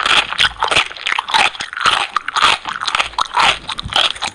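Loud, continuous crunching and chewing of crisp food, a dense stream of sharp crackles with no pause.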